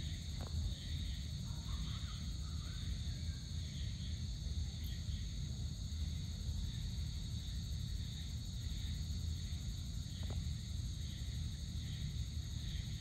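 Evening chorus of crickets and other insects: a steady high-pitched trilling with a softer pulsing call repeating about once a second, over a constant low rumble.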